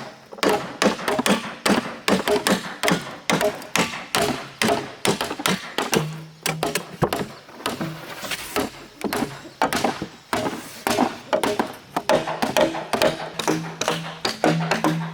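Rapid, irregular tapping and knocking, several strokes a second, with a low steady hum coming in now and then.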